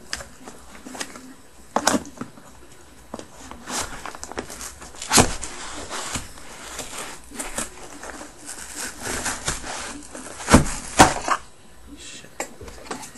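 Utility knife cutting through packing tape on a cardboard box, with scraping and rustling of the cardboard. Irregular sharp clicks and knocks run through it, the loudest about five seconds in and two close together near the end.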